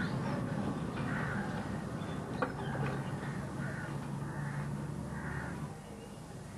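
Birds calling again and again over a steady low hum, which fades out near the end; a single sharp click a little before halfway.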